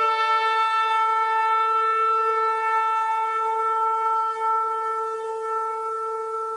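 A shofar sounding one long, steady held blast, which fades slowly over the last few seconds.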